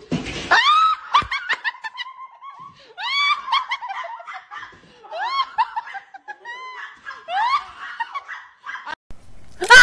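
A person laughing in repeated high-pitched squeals and snickers, with a few short knocks in the first second or so and a loud squeal at the very end.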